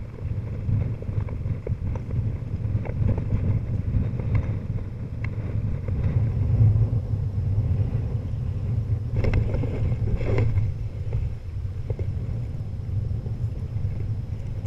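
Wind buffeting the microphone: a steady low rumble that rises and falls, with two brief louder noises about nine and ten seconds in.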